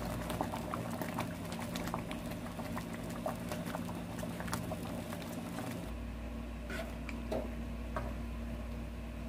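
Thick abalone rice porridge bubbling in a frying pan, its bubbles popping in many small irregular clicks as a wooden spoon stirs it; the pops grow sparser after about six seconds.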